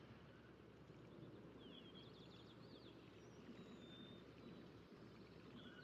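Near silence with faint background hiss, and a few very faint, quick high chirps about two seconds in and again near the end.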